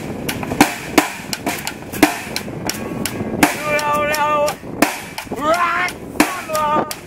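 Small band playing a rock song live: drums keep a steady beat of about two strokes a second under a guitar. A voice sings one long held note from about halfway, the line "You don't know", then moves on to "right" near the end.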